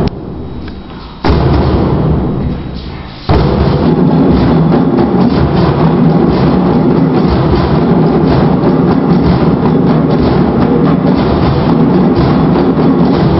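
Ensemble of djembe hand drums. A loud unison strike a little over a second in dies away, then from about three seconds in the whole group plays steady, dense drumming.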